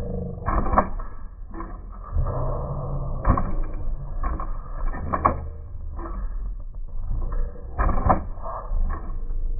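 Small servo motors in an AMT 1962 Impala model lowrider hopper whirring as they raise and lower its suspension. The body and wheels knock sharply on the table several times as the model drops and hops.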